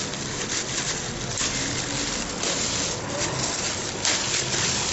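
Thin plastic bag rustling and crinkling as its knot is untied and it is pulled open, in irregular crackles over a steady hiss.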